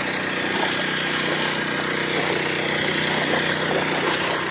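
Small engine-driven water pump running steadily at a constant speed, draining the pond.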